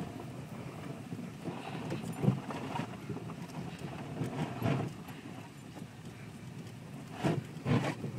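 Subaru cabin noise while driving through deep, rutted snow: a low rumble with irregular thumps and knocks as the car jolts over the snow ruts, the sharpest about two seconds in and twice near the end.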